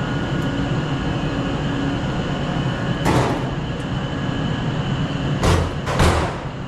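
Steady hum and rush of elevator machine-room equipment: hoist motors, controllers and air handling. Three short, loud bursts of noise cut through it, one about three seconds in and two close together near the end.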